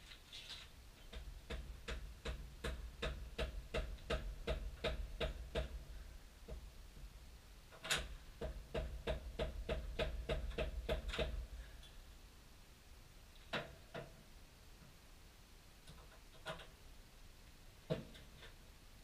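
Socket ratchet clicking in two runs of even strokes, about three clicks a second, with one sharp metallic knock about eight seconds in and a few single knocks after the clicking stops.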